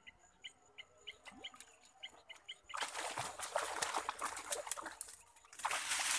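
Water splashing and churning as a catfish thrashes at the surface of a blackwater pool, starting about three seconds in, pausing briefly, then resuming near the end. Before the splashing there are faint, evenly repeated high chirps.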